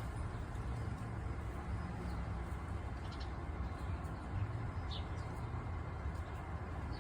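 Steady low outdoor background rumble, with a few brief, faint high chirps scattered through it.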